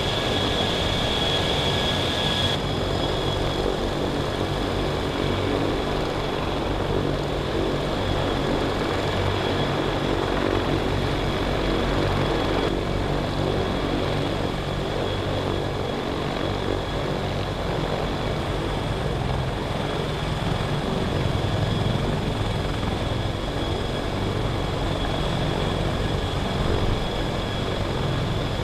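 CH-53K King Stallion heavy-lift helicopter running, its rotor blades chopping steadily over a high, even whine from its three turboshaft engines. The sound shifts abruptly about two and a half seconds in and again about halfway through.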